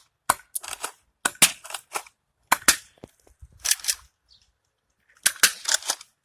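Nerf blaster firing foam darts, about six shots spaced irregularly, each a quick cluster of sharp plastic clacks.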